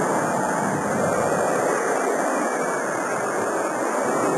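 Jet airliner climbing out low overhead just after takeoff: a loud, steady rushing jet-engine noise.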